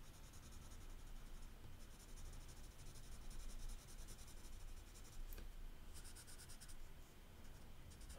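Faint scratching of a multicoloured 'magic' colour pencil on sketchbook paper, shading in short stretches of back-and-forth strokes, with a light tick about five seconds in.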